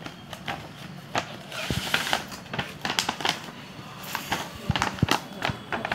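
Cardboard doll boxes and their plastic packaging being handled and opened: a run of rustles, scrapes and light knocks, with a few sharper knocks near the middle and end.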